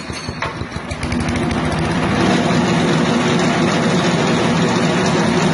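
6.5 HP petrol engine driving a grass chopper machine. It runs with uneven firing strokes at first, then speeds up over about two seconds and runs steadily.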